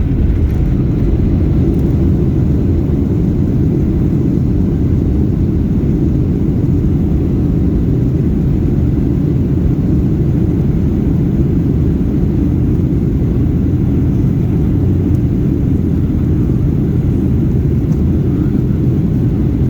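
Boeing 737-800 airliner during landing: a steady low rumble that holds an even level throughout.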